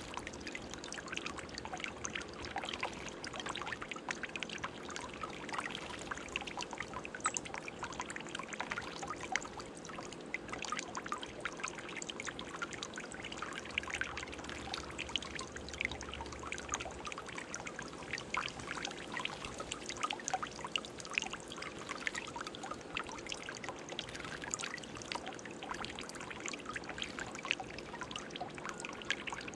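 Water trickling and splashing without pause in a stone birdbath fountain, with a chickadee bathing in the water.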